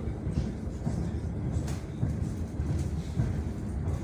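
Suburban electric train running, heard from inside the carriage: a steady low rumble with a few faint rail clicks.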